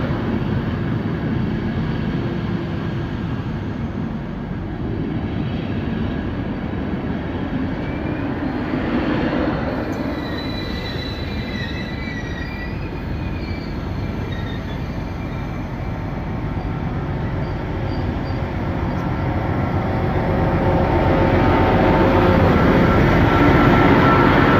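Passenger coaches rolling slowly past on the rails as the train pulls into a station, with a brief wheel squeal about ten seconds in. Near the end an FS D.445 diesel locomotive comes by and its engine grows louder.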